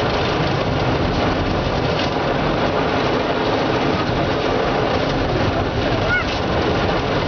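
Automatic car wash's rotating brushes scrubbing the car, heard from inside the cabin as a steady, loud rushing noise with a low rumble. A short squeak comes about six seconds in.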